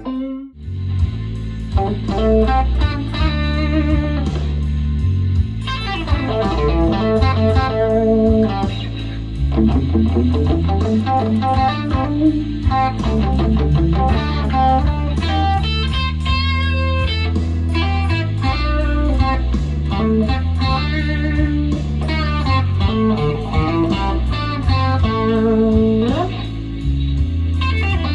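Electric guitar with Wilkinson pickups played through an amp: melodic single-note lines with string bends, over held low bass notes. It starts after a brief break at the very beginning.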